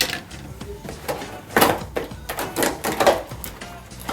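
Lightsaber toy packaging being cut and torn open by hand: a string of irregular crinkles and rips.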